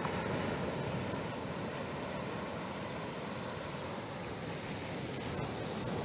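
Pacific Ocean surf breaking on the rocks, a steady unbroken wash of noise.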